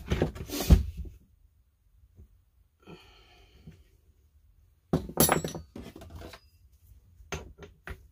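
Metal hand tools clattering and knocking on a workbench as they are picked up and set down, in bursts with short pauses between, ending in a few sharp clicks.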